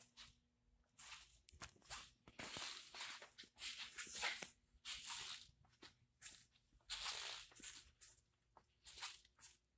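Faint, irregular scuffing and rustling from the person filming as he walks along the car, with handling noise on the handheld camera.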